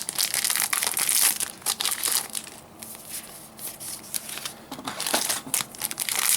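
Foil trading-card booster-pack wrappers crinkling and crumpling as packs are torn open and handled, in irregular crackly bursts, busiest in the first couple of seconds and again near the end.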